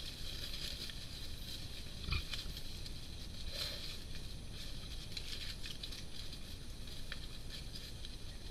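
Bearded pigs and their piglets rustling and rooting through dry leaf litter, with small scattered crackles and a low thump about two seconds in, over a steady high hiss.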